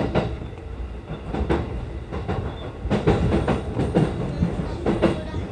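E233 series electric train rolling slowly through station points, its wheels knocking irregularly over rail joints and turnout frogs over a steady low rumble.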